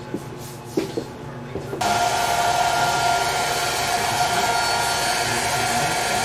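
A hot-air gun switches on about two seconds in and blows steadily with a constant whine, heating chrome vinyl film so its adhesive bonds. Two light knocks come just before it starts.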